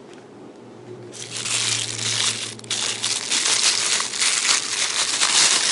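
Packaging being crinkled and handled during unboxing, starting about a second in and continuing as dense rustling with a brief pause partway through.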